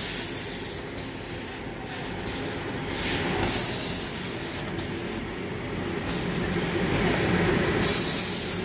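Automatic L-bar sealer and shrink-film wrapping machine running with a steady mechanical hum. Three sharp hisses of compressed air, each about a second long and about four seconds apart, come as the pneumatic sealing frame cycles.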